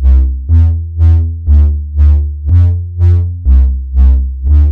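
Arturia Pigments software synthesizer playing the original Baroni Bass preset: a deep synth bass line of short notes, about two a second. Each note starts sharply and fades, and the pitch steps between a few low notes.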